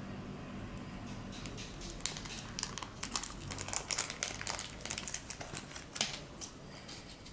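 Small clear plastic packet crinkling as it is handled and opened to take out a new regulator filter. The irregular crackles thicken about two seconds in and thin out near the end.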